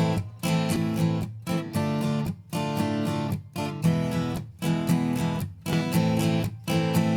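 Strummed guitar chords, played in short choppy bursts with brief silent gaps between them, heard through a Toft Audio ATC-2 channel strip (Trident 80-series-style EQ and FET compressor) in a mix-bus sound test.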